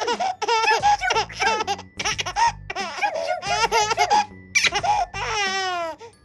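An eight-month-old baby laughing hard in a string of short bursts, ending in a longer laugh that falls in pitch.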